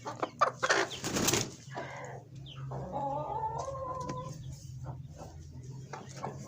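Chickens: a loud noisy scuffle about a second in, then a drawn-out hen call lasting over a second, over a steady low hum.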